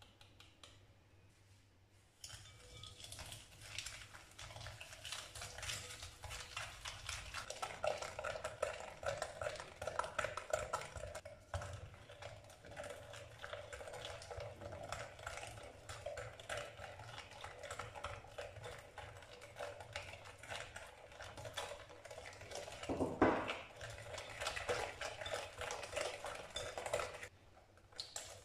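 Hand whisk beating egg, sugar and oil in a glass bowl: rapid, continuous clicking and swishing of the wires against the glass, starting about two seconds in. One louder knock comes late on.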